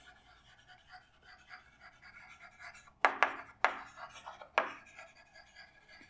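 Chalk writing on a chalkboard: faint scratching of the chalk, and about halfway through three sharp taps of the chalk striking the board within about a second and a half.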